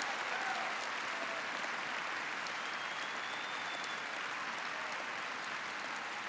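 Large audience applauding, a dense, even clapping that holds steady throughout.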